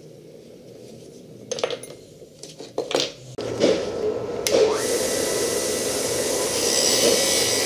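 A few metal clicks and knocks as the rusty snap hook and its spring are handled, then a Mahak bench grinder fitted with a wire wheel is switched on about halfway through, its motor whine rising as it spins up and then running steadily.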